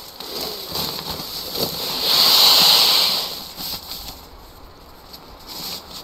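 Rustling of nylon camping gear as a sleeping bag is pulled from its stuff sack and spread out on a sleeping pad, with one louder stretch of rustling lasting about a second, starting about two seconds in.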